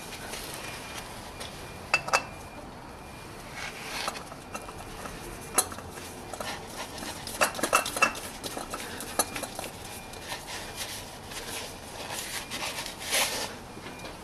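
Metal tools and a 14 mm bolt clinking and clicking while the bolt is refitted, in scattered sharp knocks with a brief metallic ring, a cluster of them near the middle.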